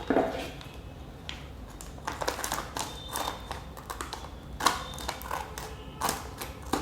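A plastic snack packet being handled, with scattered crinkles and light clicks a second or so apart.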